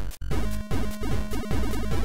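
8-bit ZX Spectrum chiptune from the AY sound chip. Square-wave melody and bass notes play over short drum hits that fall in pitch. After a brief choppy break, the full pattern comes in about a third of a second in.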